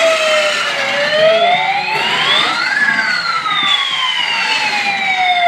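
Remote control toy fire truck's electronic siren wailing: its pitch slides down, rises for about two seconds, then falls slowly again.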